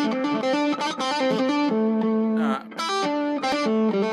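Electric guitar playing a quick single-note A minor pentatonic line, fingered notes following one another every fraction of a second. One note glides upward in pitch about halfway through.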